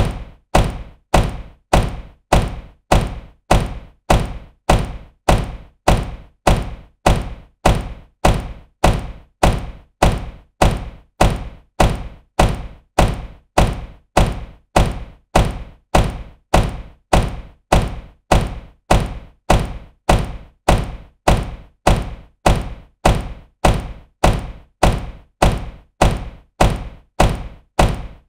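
Sports car door shutting with a solid thunk, repeated over and over at an even pace a little faster than once a second.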